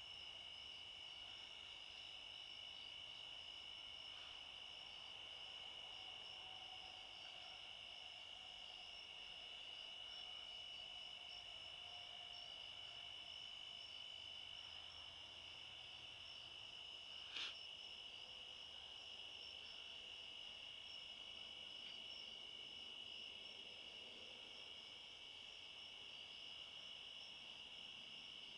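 Crickets calling in a faint, steady high trill, with one brief click about two thirds of the way through.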